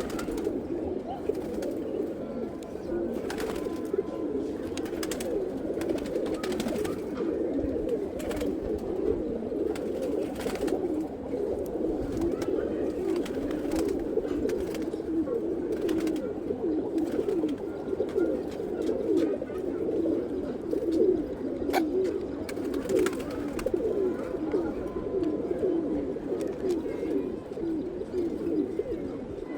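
Pigeons cooing, many calls overlapping without pause, with scattered sharp clicks.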